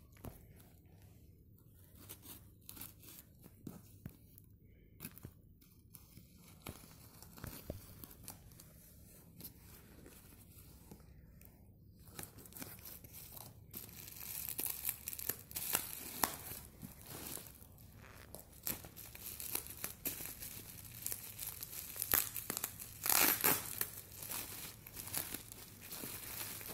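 Packing tape being torn off a cardboard parcel box, with scattered rustles and ticks. From about halfway, plastic bubble wrap crinkles steadily as it is handled and unwrapped, loudest a few seconds before the end.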